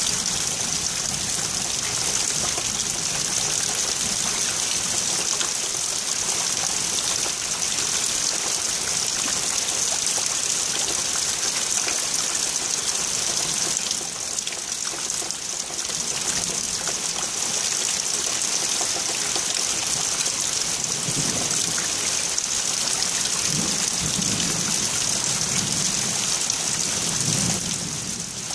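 Heavy rain falling with a steady hiss, with low rumbles of thunder coming in over the second half.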